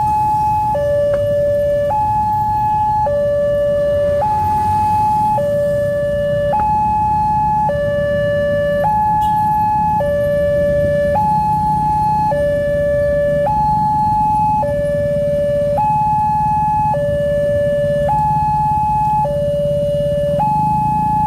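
Wantech level-crossing alarm sounding from its horn loudspeaker: an electronic two-tone warning that alternates a lower and a higher tone, each held about a second, warning that a train is approaching while the barriers are down. A steady low rumble of waiting road traffic lies underneath.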